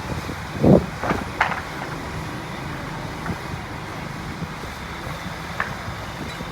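Engine of a truck-mounted crane running steadily, with one short, low thump just under a second in.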